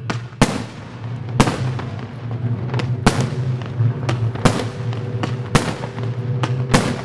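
Aerial firework shells bursting in a run of about ten sharp bangs, each less than a second or so apart, over steady music from the show's soundtrack.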